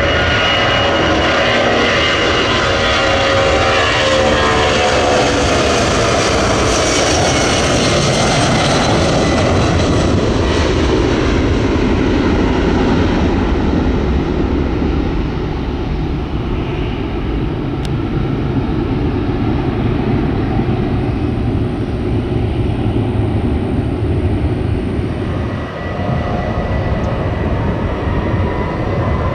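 Jet airliner engines passing close, their whine falling in pitch over the first several seconds as the aircraft goes by. After that comes a steady low rumble, and a new rising whine begins near the end.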